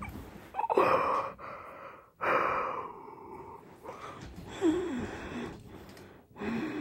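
A person's breathy gasps and breaths close to the microphone, in short bursts, with a faint wordless murmur near the end.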